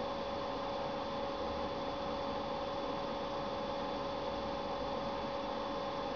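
Steady electrical hum over an even hiss, with several constant tones and nothing starting or stopping.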